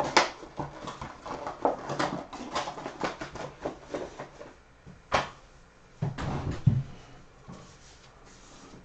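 Trading card packaging being handled and opened by hand, a run of crinkling rustles and clicks. There is a sharp snap about five seconds in and a few low thumps about a second later.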